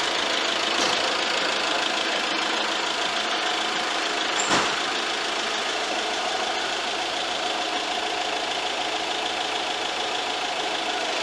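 Steady mechanical running hum and whine at a roller brake test bench with a camping car's front wheels on the rollers, with a brief knock about four and a half seconds in.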